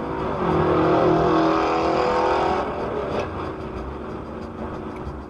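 Car driving on a highway: steady road and engine noise, with a loud, steady pitched tone from about half a second in that stops a little past the middle.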